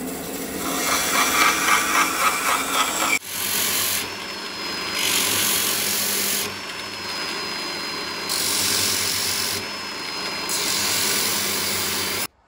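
A band saw cutting through a small piece of wood, then a DeWalt angle grinder fitted with a sanding disc running steadily while a wooden wedge is pressed against the disc several times, each contact adding a loud sanding hiss.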